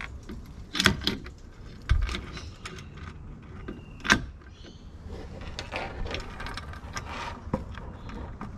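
Handling noise from a recovery-board mounting bracket being fitted to a roof rack: sharp knocks about one, two and four seconds in, the second with a low thump, then scraping and rattling as the parts are shifted.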